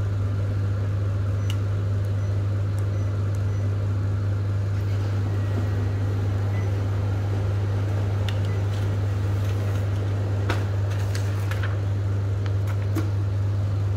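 Kyocera TASKalfa 5052ci copier running with a steady low hum, and a few sharp clicks near the end as its printed status page comes out.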